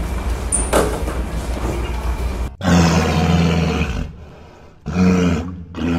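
Steady room noise with a single knock about a second in. Then, from about two and a half seconds in, a loud, low, growling animal roar sound effect that fades out, followed by two shorter roars near the end.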